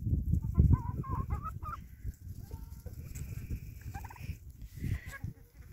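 Chickens clucking and squawking in short, wavering calls, over a loud, irregular low rumble on the microphone that is strongest in the first second.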